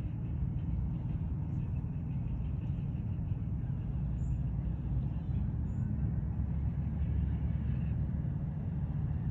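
Steady low rumble with no clear events, with two faint, brief high chirps about four and six seconds in.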